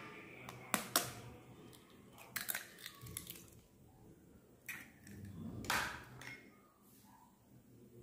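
An egg being cracked by hand: a few sharp taps and clicks of the shell, then the shell pulled apart and the egg dropped into a glass bowl.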